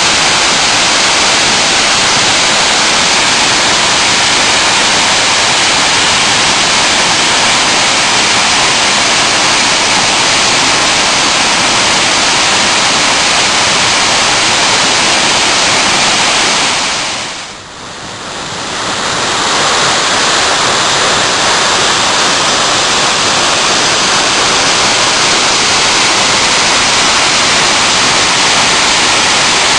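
Waterfall rushing: a loud, steady hiss of falling water. It dips briefly about two-thirds of the way through, then returns.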